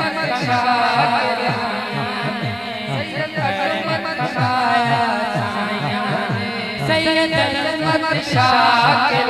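A male singer performs a Punjabi devotional song through a microphone and sound system, with a steady beat of short low drum strokes, about three a second.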